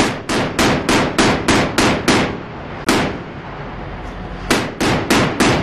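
Mk-38 25 mm chain gun firing single shots about three a second: a run of about eight, one lone shot near the middle, then four more near the end.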